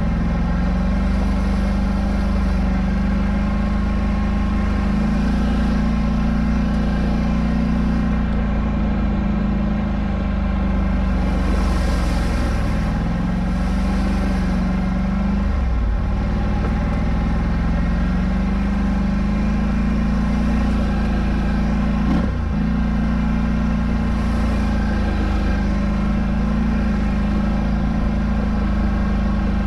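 Polaris Scrambler 1000 ATV engine idling steadily, its pitch drifting slightly and dipping briefly twice.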